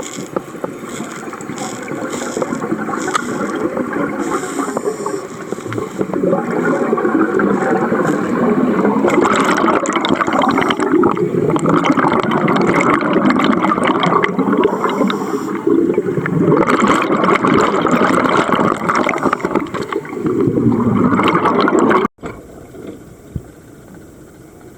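Sea water churning and gurgling around the camera, loud and turbulent, building over the first few seconds. It cuts off suddenly near the end, leaving a low steady hiss.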